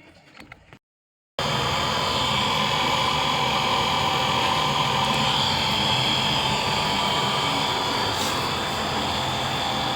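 Electric water pump motor running steadily. It starts abruptly after a brief silent gap, at full level, with no build-up.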